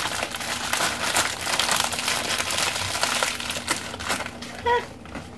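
Plastic packaging crinkling and rustling as it is handled, a dense crackle that thins out about four seconds in.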